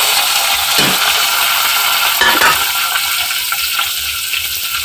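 Chopped tomatoes sizzling in hot oil with browned onions in a metal pot, with a metal spoon stirring and scraping against the pot a few times.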